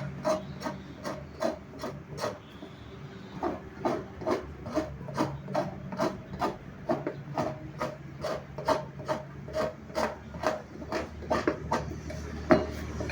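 A hand rasp scraping in quick, even strokes, about three a second, with one sharper knock near the end.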